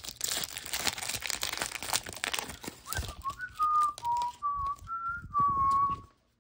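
Foil booster-pack wrapper crinkling and tearing as it is pulled open, then a person whistling a short tune of about six notes that stops about six seconds in.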